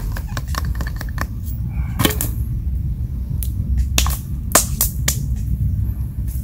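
Wood campfire crackling with sharp, irregular pops, over a steady low rumble. In the first second or so, quick taps of a knife blade shaving a stick mix in.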